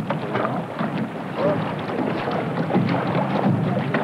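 Wind buffeting the microphone over water around a small boat, with the water lapping at the hull.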